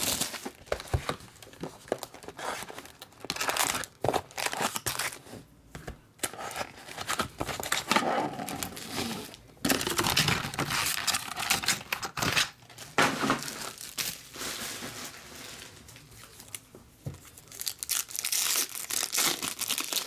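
Plastic shrink-wrap crinkling as it is torn off a box of trading cards, then foil card-pack wrappers crinkling and tearing open, in irregular bursts with short pauses.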